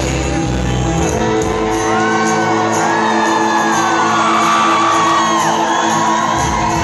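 Live rock band holding a sustained chord as a song ends, with the audience shouting and whooping over it in a concert hall. The bass drops out about two seconds in while the held notes ring on.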